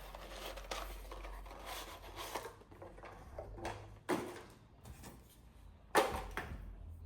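Hands opening a diffuser's box and packaging: rustling and scraping, with two sharp knocks about four and six seconds in, the second the louder.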